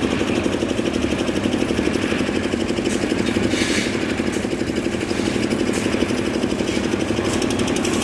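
Small engine running steadily with a fast, even chugging: the concrete mixer working at a slab pour. A brief hiss sounds about three and a half seconds in.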